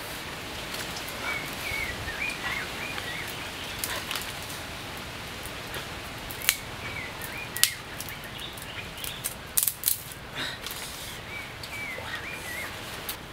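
Forest ambience with a bird repeating a short phrase of wavering high notes three times. Several sharp clicks or snaps come in the second half.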